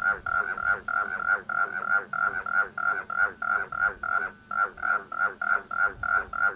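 Frogs calling: a steady, regular series of short croaks, about three to four a second.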